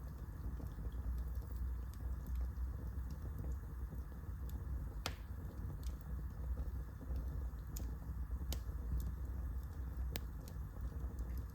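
Wood fire burning in a fireplace: irregular sharp crackles and pops over a steady low rumble, the loudest pops about five seconds in and again near the end.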